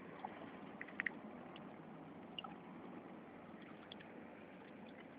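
Dog eating fish: faint, scattered wet smacking and clicks of chewing and licking over a steady background hiss.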